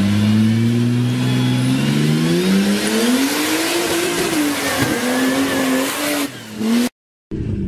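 Turbocharged RB25DET straight-six in an off-road Nissan Patrol revving under load in mud, its pitch climbing over a couple of seconds, dipping and climbing again, with tyre and mud noise over it. It cuts off suddenly near the end, and after a brief gap another engine is heard.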